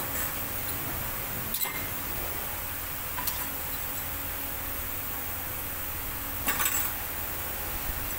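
A few light metallic clinks as brake pads are handled and fitted against the caliper bracket, over a steady background hiss. One comes about a second and a half in, another near the middle, and a short cluster about two-thirds of the way through.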